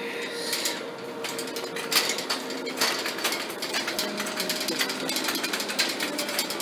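Wire shopping cart rattling as it is pushed along: a rapid, uneven clatter of the basket and wheels that starts about a second in.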